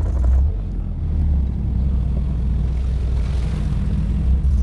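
Car running with a steady low rumble.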